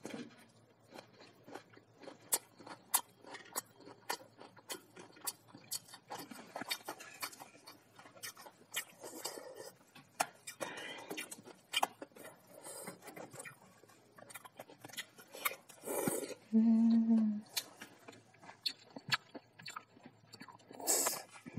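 Close-miked eating sounds: a person chewing and eating cup noodles with chopsticks, with many small sharp clicks and smacks. A short hummed "mm" comes about three-quarters of the way through.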